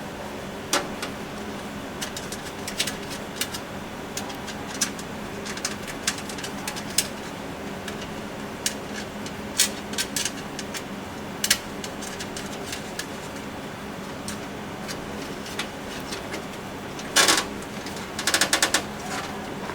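Scattered light clicks and taps from PC hardware being handled as the motherboard and its standoffs are worked on in the case, over a steady low hum. Two quick runs of rattling clicks come near the end.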